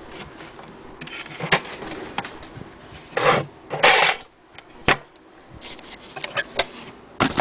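Handling noises on the wooden base of an antique hand-crank sewing machine: a few sharp knocks and clicks, and two short scrapes a little after three and four seconds in.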